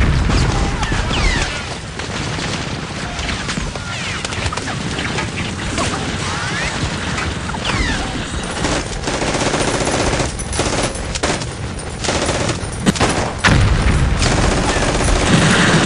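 Battle sound effects: continuous rapid gunfire with heavy bangs and a few whizzing sounds.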